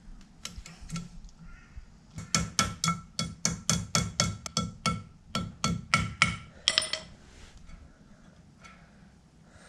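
Small hammer tapping a new steel split pin in the propeller nut of an outboard's prop shaft: a quick run of light metallic taps, about four a second for some four seconds, each with a faint ring, then a short rattle.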